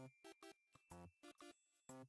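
Quiet background music made of short, separate staccato notes at a bouncy pace of about three a second.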